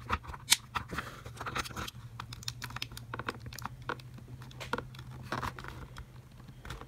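Plastic case of a power bank being pried apart at its snap-fit seam with a thin metal blade: irregular small clicks, creaks and crackles as the plastic flexes and the clips give, over a steady low hum.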